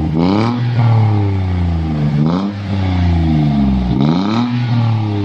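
Daihatsu Ayla engine revved in three quick throttle blips through an aftermarket exhaust with a stainless resonator, monel pipe and JS Racing rear muffler. Each rev rises sharply and then falls away slowly, one near the start, one a little past two seconds in and one about four seconds in.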